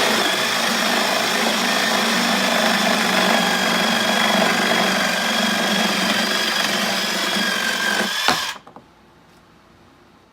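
A power tool running steadily against the plastic end of a refrigerator water filter, cutting or wire-brushing the housing, with a steady whine over the grinding noise. It stops abruptly about eight seconds in.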